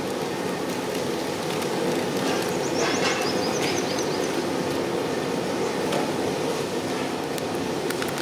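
Steady noisy hum of outdoor background, with a brief run of high chirps about three seconds in.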